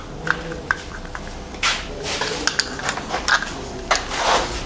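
Light clicks, clinks and taps of metal engine parts being handled during the teardown of a Tohatsu M15 outboard's powerhead, with two short rustling scrapes.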